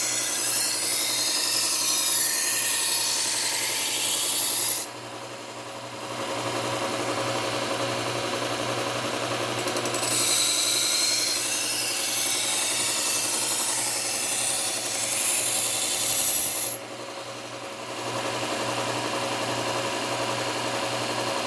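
Low-speed belt sander running steadily while a thin Miyabi kitchen knife is ground edge-leading against a Cubitron 120-grit belt, held in an angle guide. There are two long grinding passes with a loud hiss, one from the start until about five seconds in and one from about ten to seventeen seconds in, with only the motor hum between them. This is the apexing stage, raising a burr along the edge.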